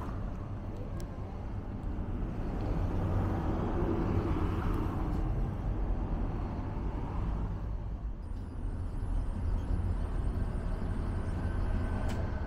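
Road traffic going by: a steady low rumble that swells as a vehicle passes a few seconds in.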